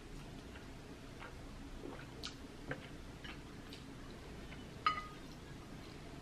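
Quiet chewing and small wet mouth clicks from eating black bean noodles, then a single sharp clink of dishware with a short ring, about five seconds in.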